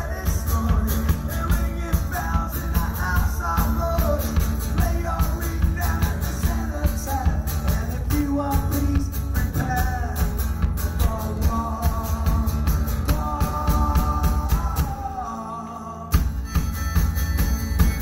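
Live rock music: a band playing with a steady beat under a wavering lead melody line. Near the end the music drops back for about a second, then the full band comes back in sharply.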